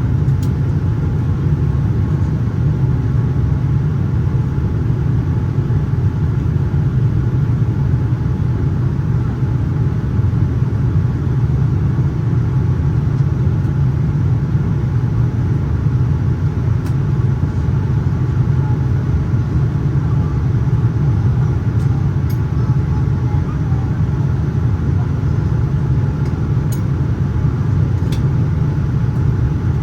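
Steady, deep in-flight cabin rumble of a Boeing 787-9 airliner: engine and airflow noise heard from a window seat, with a faint steady hum and a few light creaks or ticks from the cabin.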